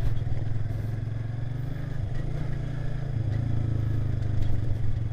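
Motorcycle engine running with a steady low hum while the bike is ridden over a rough gravel dirt track.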